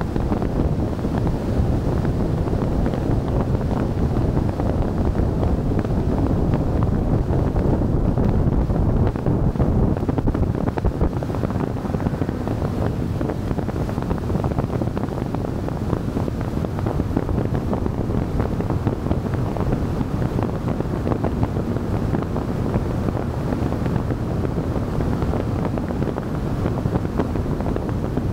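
Steady low wind rumble buffeting the microphone of a camera mounted on the outside of a moving car, with road noise underneath.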